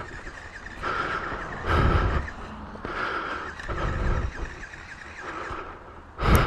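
Single-cylinder four-stroke dirt bike engine, a KTM 350 EXC-F, ticking over at idle, with several short low rumbling swells and a sharp knock near the end.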